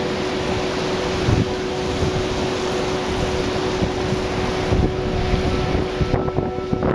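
Wind buffeting the camera microphone, a steady rushing noise with a faint steady hum underneath. The rushing thins out about six seconds in.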